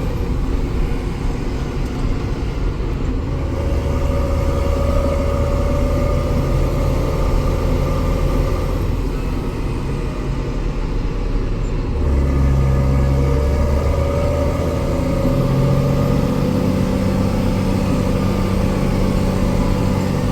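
Tractor engine running steadily on the road. About twelve seconds in, its note changes and gets louder.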